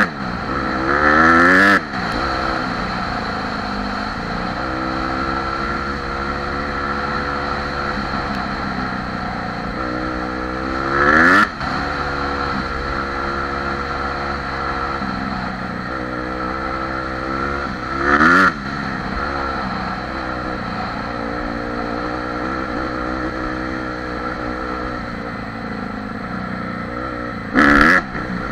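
Single-cylinder four-stroke engine of a Honda CRF dirt bike running as it is ridden along a trail. It holds steady throttle most of the time, and the revs climb four times, each climb ending in a brief loud burst.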